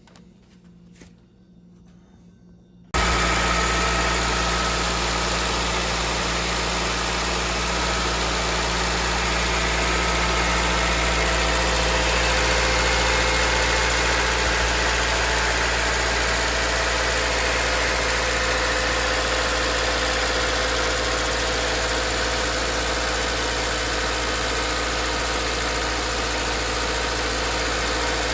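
A few faint clicks in near quiet, then about three seconds in, a Subaru Outback's engine is suddenly heard idling steadily and evenly.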